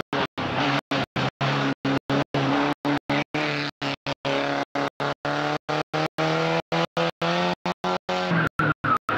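Peugeot 205 rally car's engine running hard at high revs through a bend, the revs climbing in the second half, with a tyre squeal near the end. The sound drops out briefly several times a second.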